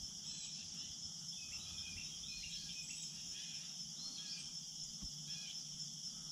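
Steady high-pitched chorus of crickets or similar insects, with many short chirps scattered through it.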